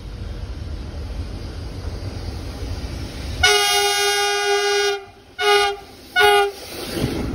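Diesel locomotive's air horn sounding one long blast of about a second and a half, then two short blasts, over a low rumble. The approaching train's rumble swells near the end.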